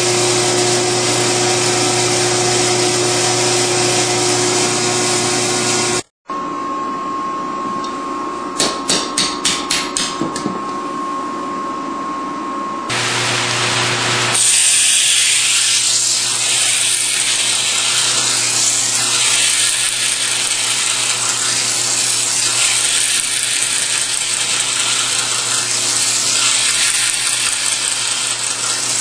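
Edited run of knife-making workshop sounds. It opens with a steady machine hum at the forge, which cuts off suddenly. A quieter stretch follows with a steady whine and a quick series of light taps. From about halfway a powered grinding wheel runs steadily, with a knife blade held against it to grind the edge.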